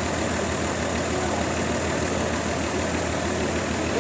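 Heavy machinery running steadily at idle, an even mechanical drone with a low hum.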